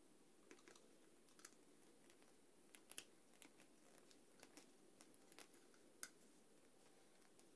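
Near silence with faint, irregular clicks and taps of small thin wooden parts being handled and pressed together by fingers, the sharpest about three seconds in and again about six seconds in.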